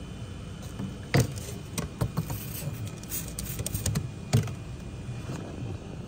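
A string of light clicks and knocks from tools and parts being handled, sharpest about a second in and again past four seconds, over a steady low hum.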